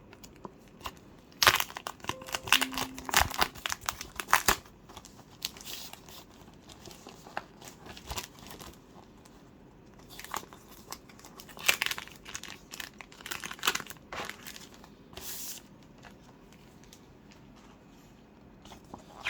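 Paper and packaging crinkling and rustling in irregular bursts as a package is opened and a large folded paper sheet is unfolded.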